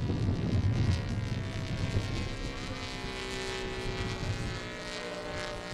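Saito FA200 R3 three-cylinder radial engine of a model racer plane running steadily in flight, a droning tone that shifts slightly in pitch and grows quieter after about two seconds.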